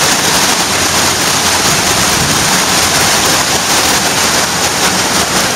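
Shallow whitewater rapids rushing over a smooth rock riverbed close by: a loud, steady rush of water.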